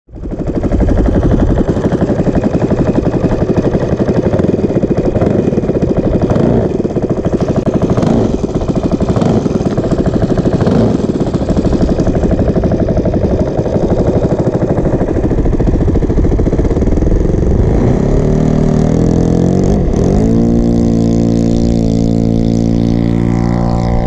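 Saito FG40 single-cylinder four-stroke gasoline engine of an RC model plane running with a loud, rapid pulsing beat, then opened up in steps to a steady high-revving tone for takeoff.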